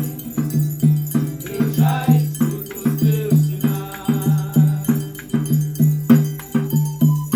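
Music with a steady pulsing low note, a little over twice a second, under ringing chime-like struck tones.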